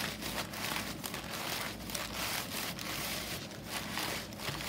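Crumpled newsprint crinkling and rubbing over a wooden picture frame in quick, irregular wiping strokes, taking off a fresh coat of black spray enamel.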